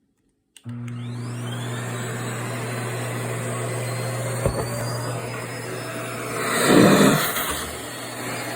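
Vacuum cleaner switched on about half a second in, its motor whine rising to speed and then running steadily with a constant hum and rush of air. Near seven seconds the rushing air swells louder for about a second, then eases back.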